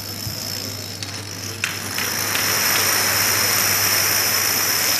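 Thousands of dominoes toppling in a chain, a dense continuous clatter that swells louder about two seconds in.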